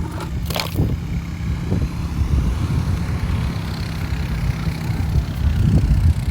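Wind buffeting the microphone: a steady, fluttering low rumble, with a brief click about half a second in.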